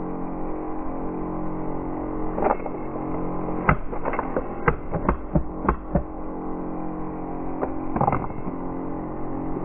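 A coin dropping through a maze coin bank of white plastic ramps, levers and punches in an MDF box, giving sharp clicks and knocks as it strikes and is pushed by the parts. There is one knock about two and a half seconds in, a quick run of about seven between four and six seconds in, and one more near the end.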